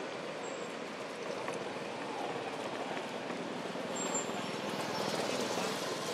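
Steady outdoor background noise with distant road traffic, and a brief high chirp about four seconds in.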